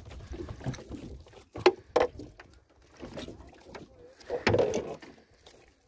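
Hollow knocks and clatter in an aluminium fishing boat as tackle is handled on the floor and the hull is struck, with a sharp knock about a second and a half in and another burst of knocking past four seconds.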